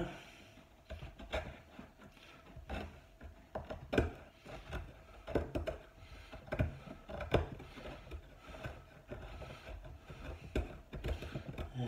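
Irregular knocks and clicks of wood and hand tools being handled on a wooden table top, a dozen or so sharp taps at uneven intervals. The loudest comes about four seconds in.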